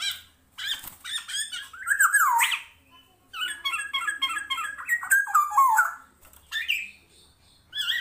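Caged kepodang timur, a kind of oriole, singing loud, quick phrases of sliding notes separated by short pauses, with a longer busy run about halfway through.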